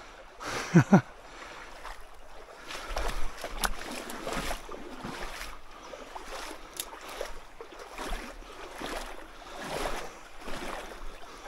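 A person moving on foot along a small creek: irregular swishing and rustling steps. A short vocal sound comes about a second in.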